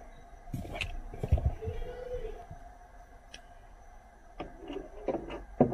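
Plastic clicks and knocks of a car's roof grab handle and its trim clips being pried and pulled out. There are a few dull thumps about a second and a half in, and a run of sharper clicks near the end.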